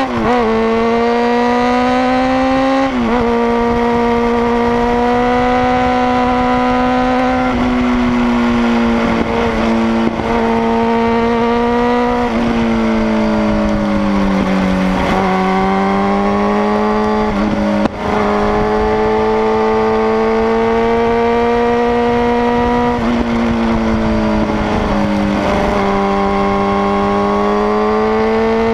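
Sport motorcycle engine running hard at high revs, its pitch climbing slowly and dropping several times as the throttle is rolled off and gears are changed, with a brief dip about 18 seconds in. Wind rushes over the microphone underneath.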